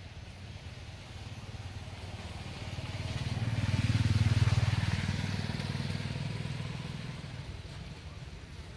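A motor vehicle driving past: a low engine rumble with tyre and road noise that swells to its loudest about four seconds in, then fades away.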